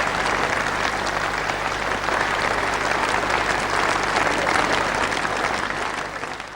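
Concert audience applauding steadily, the applause fading out near the end.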